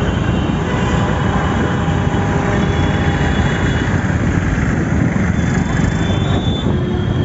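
Steady road traffic noise from vehicles passing close by, including a tractor, as a loud continuous rumble.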